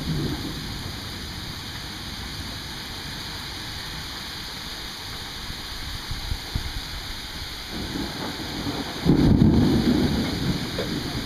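Steady rain hissing, with rolling thunder. A rumble fades away at the start; about eight seconds in, thunder builds and breaks into a loud low rumble that dies down toward the end.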